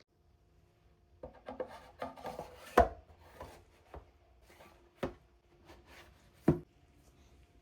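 Hands handling the packaging of a boxed 4K disc set: rustling and sliding, then sharp taps about three times, the loudest near the start.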